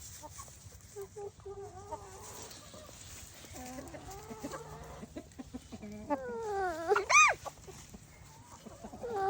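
Chickens clucking, with one loud squawk about seven seconds in that first falls and then rises sharply in pitch.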